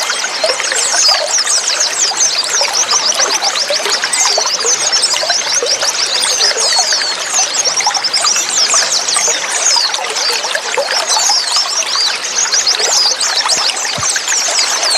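White-eyes (pleci) chirping continuously: many quick, high-pitched calls overlapping over a steady trickle of running water.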